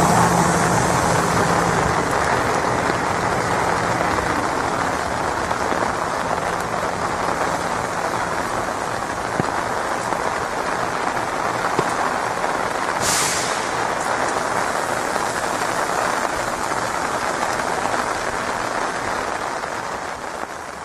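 Steady hiss of heavy rain, with the low hum of a passing train dying away over the first several seconds. A short, sharp high hiss comes about two-thirds of the way through.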